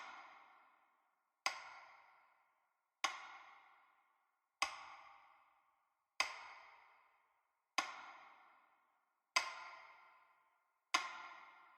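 A bright struck ping, repeated eight times about every one and a half seconds, each ringing out and fading to silence before the next.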